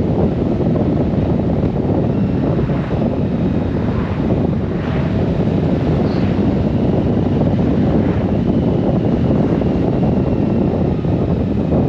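Steady wind rush on the microphone of a Honda Gold Wing motorcycle riding at road speed, mixed with the bike's running.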